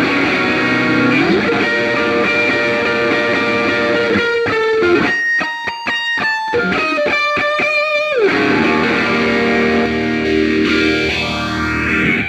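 Electric guitar played through a pedalboard of effects with distortion, ringing out sustained chords. In the middle the sound is chopped into a rapid stutter with high, piercing tones, and near the end a sweeping effect moves up and down through the sound.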